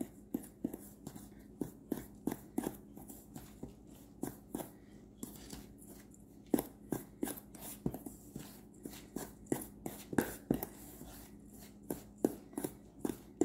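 A utensil knocking and scraping against a mixing bowl, about two or three uneven knocks a second, as an egg is stirred into a dry flour, sugar and baking-powder mixture that is forming clumps.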